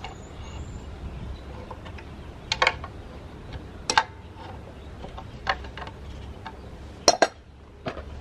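Scattered sharp metallic clinks and knocks from a small old piston air compressor pump and its mounting hardware being handled on a wooden board, with a quick double clink about two and a half seconds in and another near the end.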